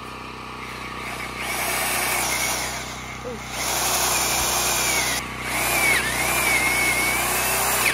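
Corded Kobalt drill boring into a living tree trunk with a large Forstner bit, starting about a second and a half in. The motor strains in the tough wood, its pitch sagging and recovering, and it eases off briefly twice.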